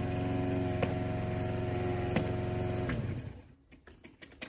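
Briggs & Stratton single-cylinder engine of a Toro Recycler walk-behind mower running steadily under cutting load, then cutting out about three seconds in as the deck clogs in tall, wet grass. A few faint clicks follow.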